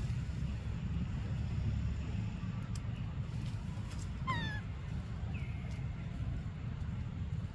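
A baby monkey gives one short, high-pitched cry, falling slightly in pitch, about four seconds in, over a steady low rumble.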